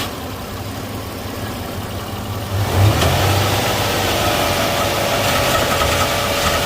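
Freshly rebuilt 3.4-litre V6 of a 1994 Pontiac Firebird running soon after its first start. About two and a half seconds in, the engine speed rises and then holds steady at a higher speed.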